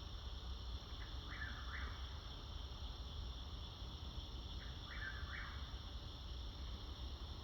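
A bird of unidentified species calling twice, each call a quick cluster of a few notes, about three and a half seconds apart, over a steady background hum.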